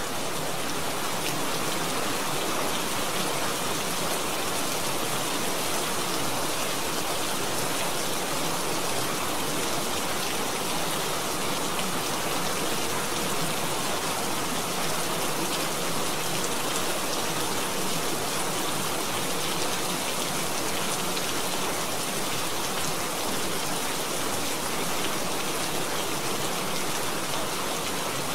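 Steady recorded rain, an even unbroken hiss with no distinct drops or thunder, used as the masking layer of a subliminal affirmation track.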